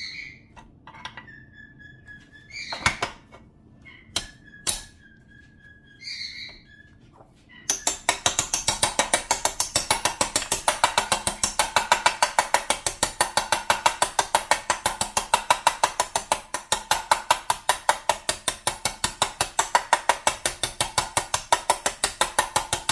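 A few separate metal clinks, then a small ball-peen hammer tapping a bearing driver fast and evenly, several light taps a second, to seat a bearing into a heated aluminium crankcase half of a Honda TRX250R engine. The taps are light but sound forceful.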